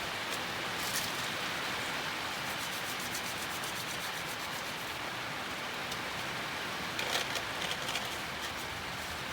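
Steady rubbing and scraping noise, with small clicks about a second in and again around seven seconds in.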